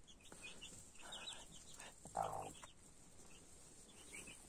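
Broody Brahma hen sitting on her eggs gives two short low clucks about a second apart as she is handled, with faint high chirps around them.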